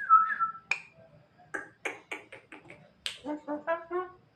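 Javan myna calling: a short whistle at the start, then a run of about seven sharp, harsh bursts, then five quick nasal notes stepping up in pitch near the end. The harsh bursts fit the bird's imitation of coughing, which the owner likens to an old man's cough.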